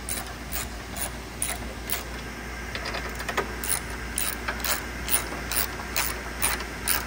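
Hand ratchet with a 14 mm socket tightening a bolt, its pawl clicking in a steady run of about two clicks a second as the handle is swung back and forth.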